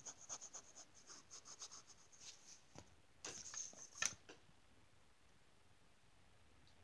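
Faint, quick strokes of a colouring tool rubbing on paper, about four or five a second, during touch-up work on a painting. A short burst of denser rubbing ends in a sharper tap about four seconds in.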